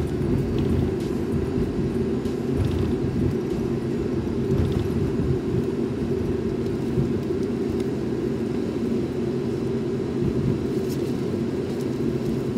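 Cabin noise inside an Airbus A350 taxiing: a steady low rumble of its Rolls-Royce Trent XWB engines at idle as the airliner rolls along the taxiway.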